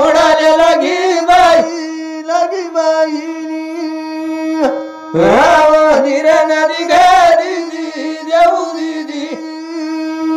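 A man singing a wavering, ornamented chant in long phrases over a steady instrumental drone held on one pitch. The voice breaks off briefly about four and a half seconds in, then resumes, and trails off near the end while the drone carries on.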